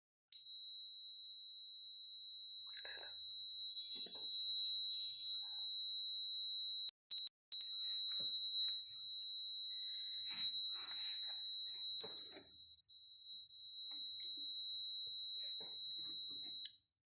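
Piezo buzzer of a home-made fire alarm, switched by a tube light starter, sounding one steady high-pitched tone. It cuts out twice very briefly about seven seconds in and stops just before the end.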